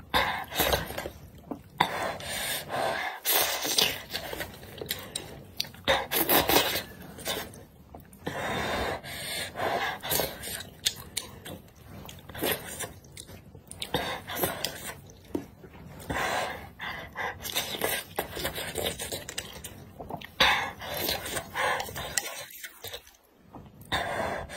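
Close-up eating sounds: wide noodles slurped from a spicy broth, with wet chewing and loud breaths between mouthfuls, in irregular bursts.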